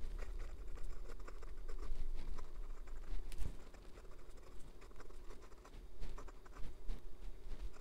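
Broad steel nib of a Visconti Mirage Mythos fountain pen writing on paper: irregular light scratching and tapping of handwritten strokes.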